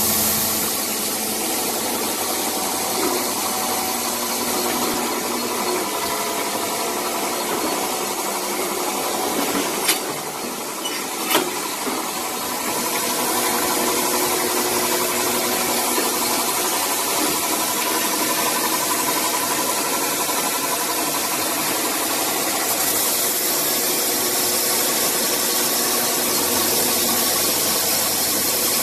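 PM315 CNC saw blade polishing machine running steadily, its motors humming as the polishing head works a saw blade to strip the oxide layer. Two sharp clicks come about a second and a half apart near the middle.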